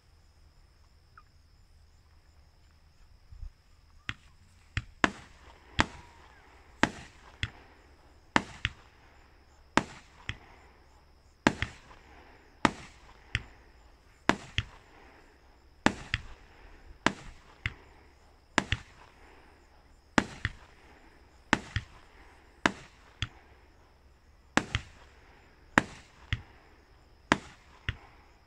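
Aerial fireworks shells going off in a long irregular series of sharp bangs, about one every second, starting about three and a half seconds in, each bang trailed by a short echo.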